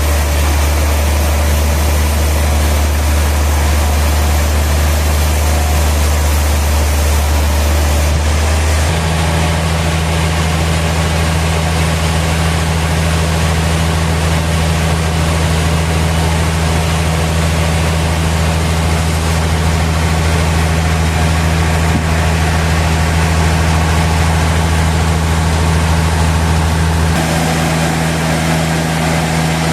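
Sawmill machinery running steadily with a loud low hum, which shifts to a new pitch about nine seconds in and again near the end.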